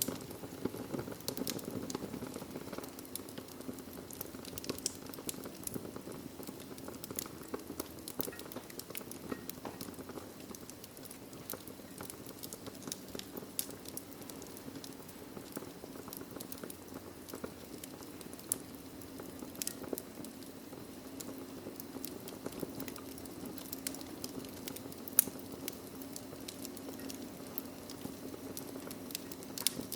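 Wood fire burning in a fireplace: a steady low rushing of the flames with frequent small crackles and snaps, and one sharper pop about 25 seconds in.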